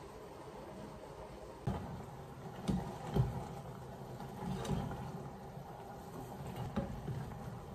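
Scattered knocks and clinks of kitchen utensils: metal tongs tapping against a stainless steel pot as cooked noodles are lifted out, about five separate strikes.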